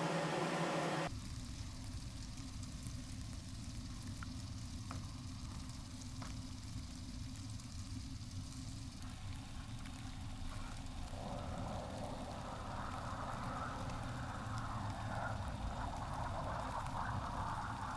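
A low steady rumble; about eleven seconds in, an uneven hiss rises over it.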